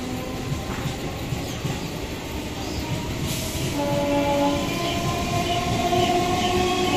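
EMU local train pulling along the platform and gathering speed: its electric traction motors whine in several tones that rise slowly in pitch and grow louder, over the rumble of the wheels. There is a brief hiss about three seconds in.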